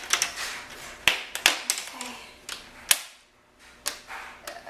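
Plastic laptop screen bezel being pried off, its retaining clips popping loose in a series of sharp clicks and snaps, about six spread unevenly over a few seconds.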